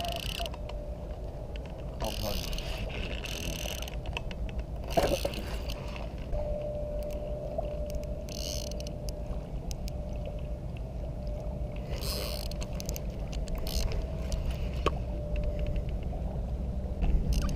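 Spinning fishing reel being cranked to wind in line, giving faint mechanical whirring and a few clicks, over a steady wind rumble on the microphone.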